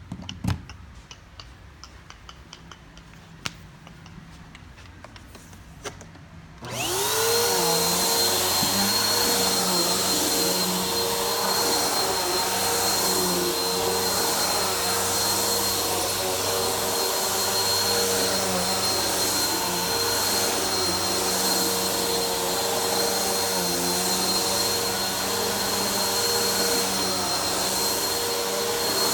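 A few light clicks and knocks, then about a quarter of the way in a vacuum cleaner switches on. Its motor spins up quickly, then runs steadily with a high whine.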